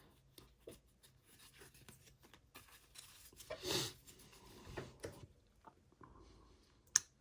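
Trading cards being handled and slid over one another: faint rubbing and rustling with a few soft swishes and scattered small clicks, and one sharp click near the end.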